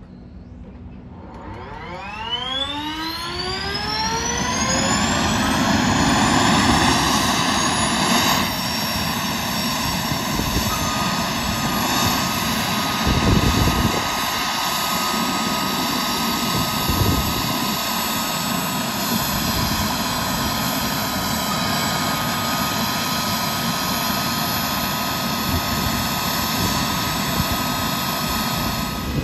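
Boeing CH-47 Chinook's auxiliary power unit, a small gas turbine, starting with the rotors still stopped. Its whine climbs steadily in pitch and loudness over the first several seconds as it spools up, then settles into a steady high turbine whine once it is up to speed.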